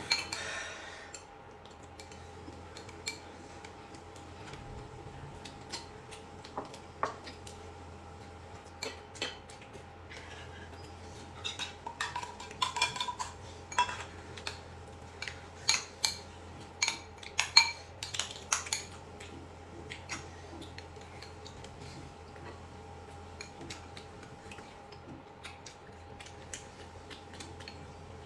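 Eating utensils clinking and tapping against bowls and plates during a meal: scattered light knocks, coming thickest through the middle of the stretch, over a faint steady hum.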